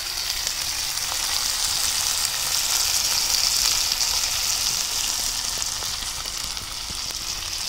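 Sliced onions frying in a wok: a steady sizzle, a little louder midway.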